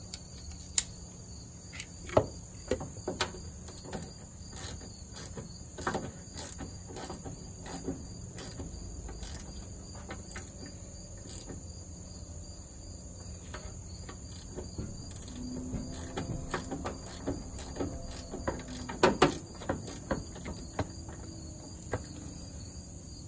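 Metal-on-metal clicks and clinks from a socket ratchet working the cable nuts on a starter solenoid's terminals, scattered and irregular, the loudest a close pair about nineteen seconds in. A steady chorus of crickets runs behind.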